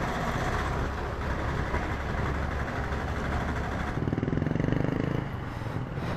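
Honda Activa 5G scooter's small single-cylinder engine running while riding on a wet road, with tyre hiss and wind noise. About four seconds in, a rapid even pulsing from the engine rises for about a second as the scooter slows to turn in, then fades.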